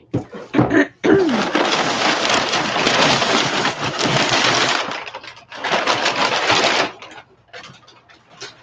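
Crumpled brown packing paper crinkling and rustling as it is pulled out of a cardboard shipping box, in one long stretch starting about a second in and a shorter one near the end.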